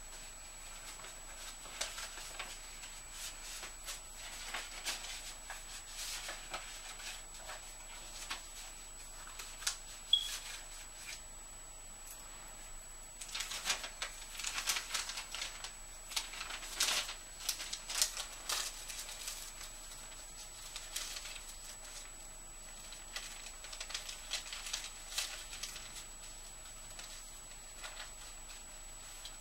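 Paper rustling and crinkling as letters, cards and envelopes are picked up and sorted, in irregular bursts that are busiest around the middle.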